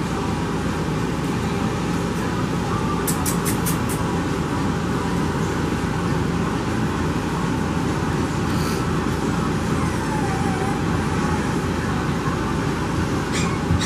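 Steady machine-like noise with a low hum, running evenly throughout, with a few quick clicks about three seconds in.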